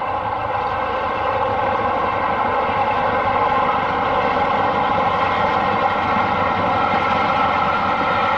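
Steady rushing noise of a train, getting a little louder about a second in.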